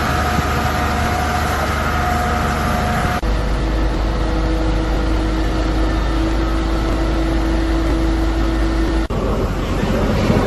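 Fire truck engines running steadily: a low droning hum with a steady whine over it, the sound changing abruptly about three seconds in and again about nine seconds in.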